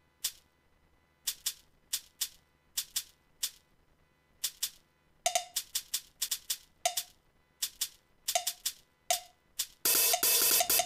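Sharp, dry percussion hits opening a track: sparse and irregular at first, coming thicker from about halfway, some with a short pitched blip. Near the end comes a loud burst of noise about a second long.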